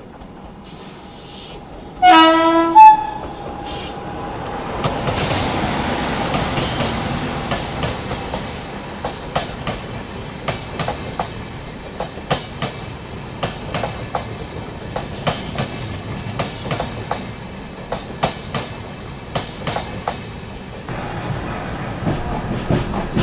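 Electric locomotive horn sounded twice about two seconds in, a short lower blast and then a higher one, as the locomotive passes on the adjacent track. Then the passing coaches rumble close by, with sharp clacks of their wheels over the rail joints.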